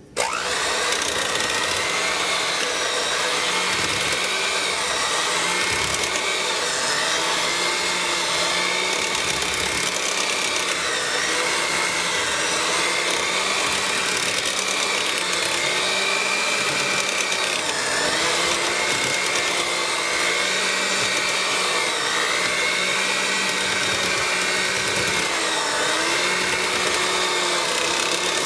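Electric hand mixer starting up suddenly and whipping a thick cream soap paste in a crock. The motor whine is steady, and its pitch dips briefly about every two seconds.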